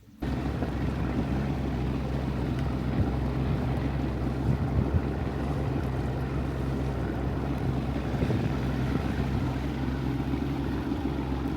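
Motorboat under way at low speed: a steady engine hum with wind and water rushing past, starting suddenly just after the start.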